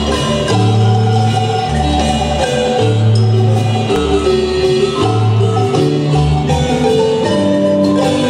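Guatemalan marimba band playing amplified: a marimba melody over a bass line that steps between two low notes about once a second, with light percussion hits.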